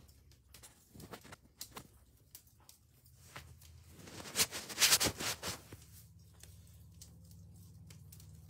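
Handling noise of a phone held close to its microphone: scattered clicks, then a burst of rustling and knocking about four to five and a half seconds in, over a low steady hum.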